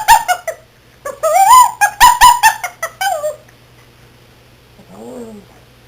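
Chihuahua puppy making high, squeaky vocal noises: a quick run of short squeaks, a longer squeal that rises and falls, then more quick squeaks. After a pause there is a fainter, lower moan near the end.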